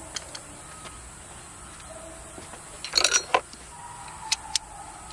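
A quick cluster of sharp metal clicks and clinks about three seconds in, then two more single clicks: hand tools being handled against the engine's hose clamps. Underneath is a steady faint hiss.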